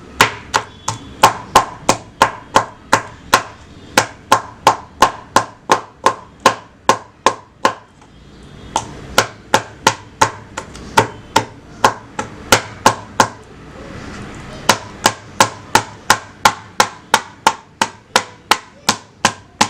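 Knife point stabbing repeatedly through raw chicken wings, each stab knocking on the board beneath, about three sharp knocks a second. The knocks pause briefly twice: a little before halfway and again about two-thirds through.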